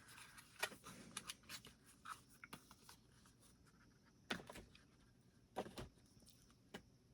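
Faint clicks, taps and rustles of small cosmetic containers being handled and set down, with a few sharper knocks about four and a half, five and a half and near seven seconds in.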